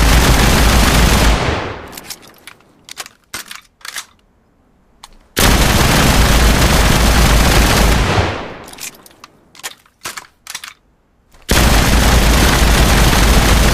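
Tokyo Arsenal submachine gun firing three long bursts of automatic fire, each a few seconds long and fading out, with scattered sharp clicks and clatters in the pauses between bursts.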